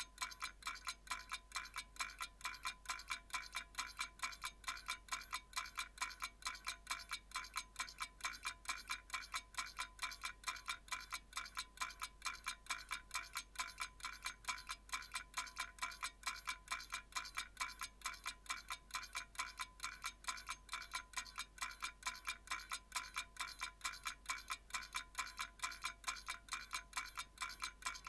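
Analog clock ticking at a fast, even pace, about four ticks a second, each tick short with a slight metallic ring.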